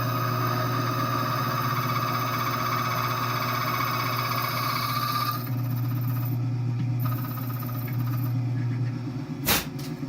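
Key-cutting machine running: a steady motor hum with a high whine from the cutter milling a high-security key blank, the whine easing off about halfway through. A sharp click comes near the end.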